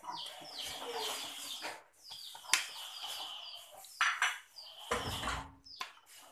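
Blue spatula scraping and knocking against a blender jug as tempoyak is pushed in, with a few sharp clicks and a brief low thud about five seconds in. Birds chirp repeatedly in the background.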